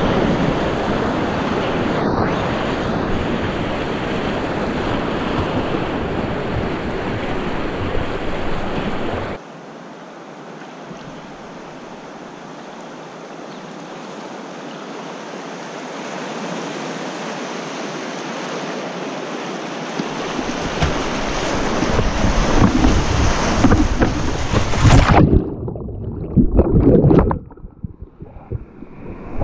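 Whitewater rapids rushing around a kayak, heard close to the water: loud steady rushing that cuts suddenly to a quieter flat-water stretch about a third of the way in. It builds back to loud surging and splashing near the end, with the sound briefly muffled in patches.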